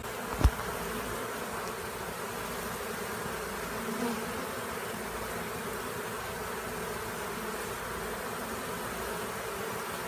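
Honey bee swarm buzzing steadily, a dense hum from many bees clustered and crawling into a hive box, with a single short thump about half a second in.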